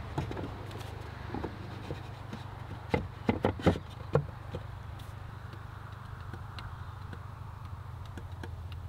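Wooden divider panels of a chicken coop's nesting box knocking and clattering as they are handled and slotted into place: a quick cluster of sharp knocks about three to four seconds in, with a few lighter taps around them. A steady low hum runs underneath.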